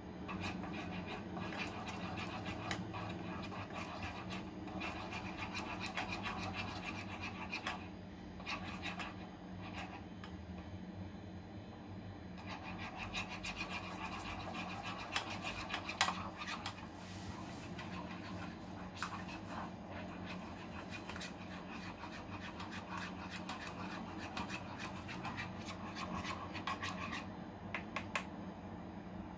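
A wooden spatula stirring and scraping liquid in a small metal saucepan: rhythmic scraping in long stretches with a pause of a few seconds between them, and light clicks of the spatula against the pan.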